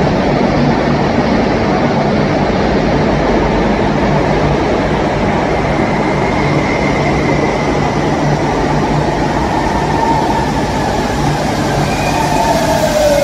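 Electric Rodalies commuter train running through an underground station: a steady loud rumble of wheels and motors with a low hum, and a whine that falls in pitch near the end.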